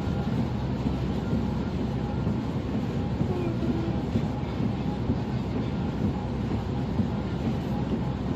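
Steady road and engine rumble heard inside a moving car's cabin at motorway speed.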